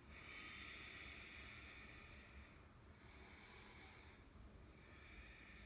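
Faint, slow breathing: three long breaths, the first lasting about two and a half seconds.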